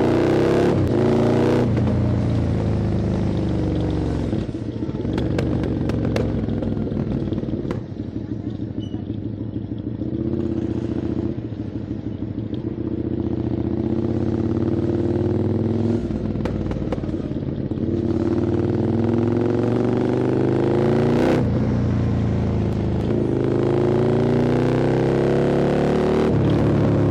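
QJ Motors SVT650X V-twin engine running through an Arrow Racetech aftermarket exhaust while riding. The revs climb and drop several times as the rider accelerates, shifts and rolls off.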